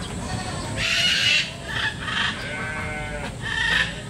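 Goats bleating: a string of calls, the loudest about a second in and again near the end.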